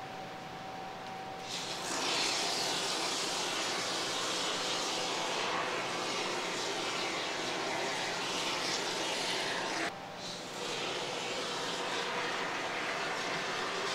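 Can of expanding spray foam hissing as foam is sprayed, starting about two seconds in, cutting off abruptly about ten seconds in, then hissing again moments later.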